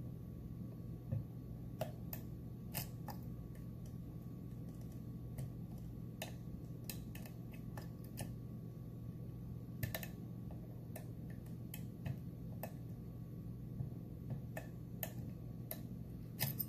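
Irregular small metallic clicks and ticks of a dimple pick and tension wrench working the pins of a Mul-T-Lock Interactive+ dimple lock cylinder, over a steady low hum.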